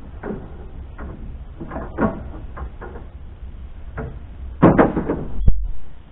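A series of irregular knocks and clatters of hard objects being handled, loudest in a rattling cluster near the end with one sharp click.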